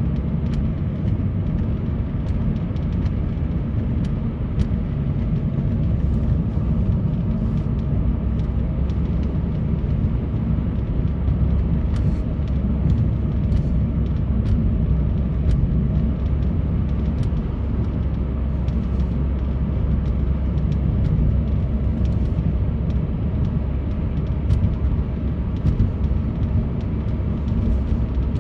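A vehicle driving on snowy roads, heard from inside: steady low engine and road rumble with no change in pace.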